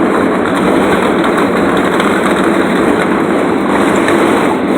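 Husky rolling tool box's casters rolling over pavement, a loud, steady rattling rumble.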